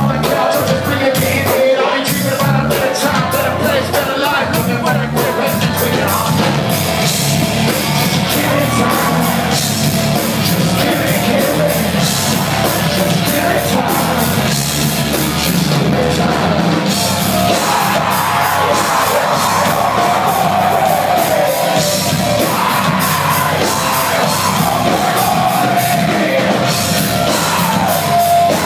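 A live heavy rock band playing loud and without a break, with a singer yelling and singing over guitars and drums.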